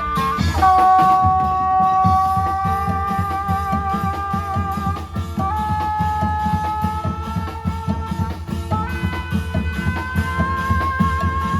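Thai Isan folk music played live: a fast, steady drum beat under long held melody notes that shift pitch a few times.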